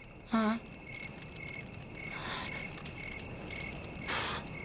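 Crickets chirping steadily at night, a short even chirp about twice a second. About half a second in a man gives a short, loud grunt, and a brief rustle comes about four seconds in.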